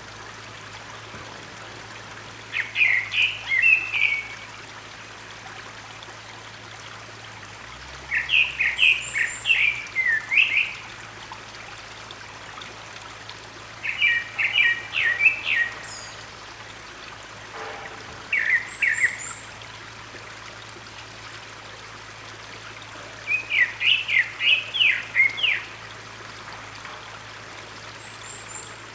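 Grey-backed thrush singing: five short phrases of quick whistled notes, several seconds apart, over the steady rush of a mountain stream.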